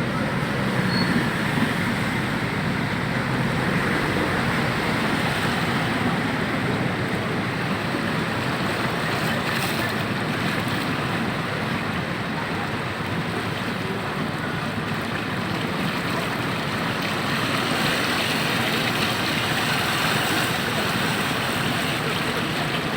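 Steady wash of water and traffic noise: vehicles driving through floodwater on a street.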